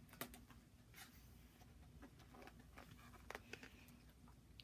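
Near silence with a few faint paper rustles and light clicks as a picture book's page is turned and the book is handled.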